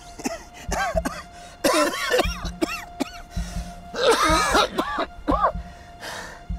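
A man's strained, choking vocal sounds and coughs in three bouts, over background music with a held tone and a steady low pulse.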